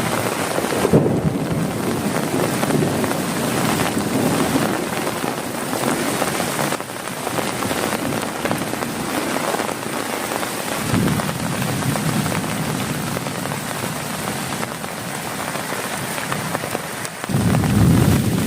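Heavy rain falling steadily on a tent's tarp, with low rumbles of thunder about a second in, around eleven seconds, and a louder one near the end.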